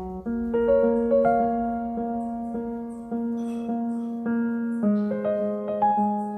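Background piano music: slow, gentle chords with notes entering one after another, moving to a new chord a little before the end.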